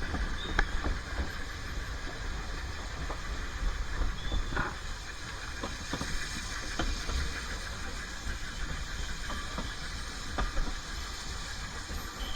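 Narrow-gauge steam train: a steady low rumble and hiss, with scattered short clicks and knocks.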